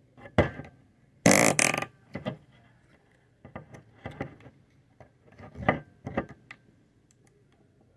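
Pink putty in a plastic cup being pressed and poked with fingers, giving a string of short squelches. The loudest is a harsh half-second burst about a second and a half in.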